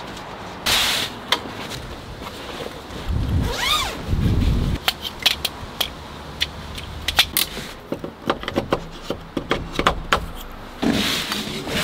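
ZAMPURE tactical camp cot being unpacked and put together: rustling and thuds of the carry bag and fabric, then a quick run of sharp clicks and clacks as the metal legs and frame poles are handled and snapped into place.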